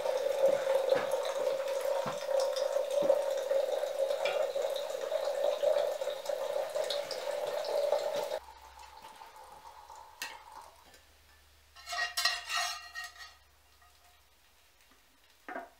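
Hot water pouring from a samovar's tap into a glass teapot, a steady stream that stops abruptly about eight seconds in. After it, quieter clinks and a second or so of metal clattering as a spatula serves fried potatoes from a frying pan.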